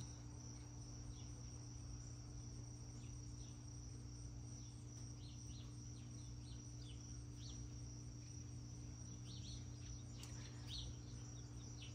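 Faint, steady high-pitched trilling of insects, with a dozen or so short high chirps scattered through and a low steady hum underneath.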